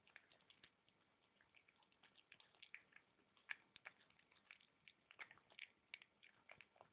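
Egyptian Mau cat chewing a prawn: faint, irregular wet clicks and crunches, several a second.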